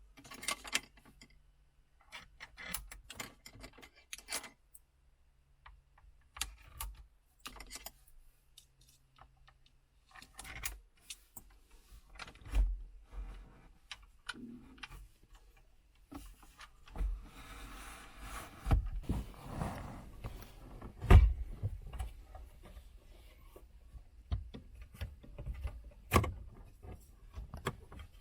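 Scattered clicks, knocks and light rattles of parts and tools being handled, with a rustling stretch in the middle and one sharper knock about three quarters of the way through.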